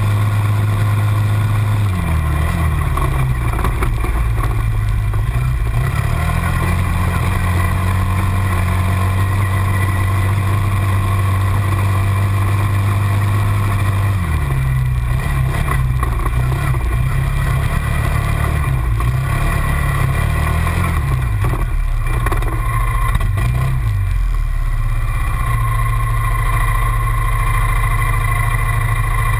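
Quad bike engine, heard from the TGB Target 325 carrying the camera, running on a gravel track with its revs rising and dropping several times. Near the end it settles to a steady low run as the quad comes to a stop.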